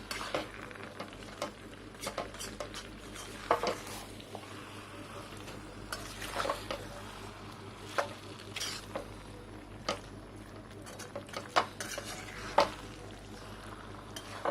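Spoon stirring and scraping around a kadhai as fried onions are mixed into chicken cooking nearly dry, with irregular clinks of the spoon on the pan. The food sizzles steadily underneath.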